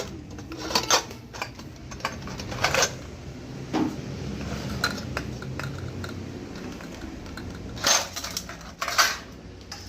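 Puja vessels being handled and set down, giving a handful of scattered clinks and knocks, the two loudest near the end.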